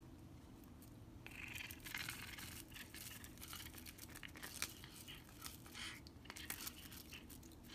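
A cat chewing on a toothbrush: an irregular run of scratchy bristle scraping and small clicks of teeth on the brush, starting about a second in.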